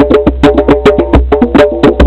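Rhythmic percussion music of rapid, sharp, pitched struck notes, several a second, over a heavy rumbling low end.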